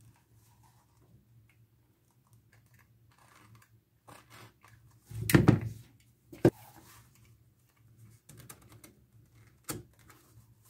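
Workbench handling sounds: a stirrup and a utility knife moved about on a wooden bench, with scattered light clicks and knocks. There is a louder clatter about five seconds in, a sharp knock a second later, and another knock near the end as the knife comes to the leather.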